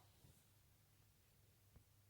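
Near silence: faint room tone with a low steady hum and a couple of tiny soft clicks.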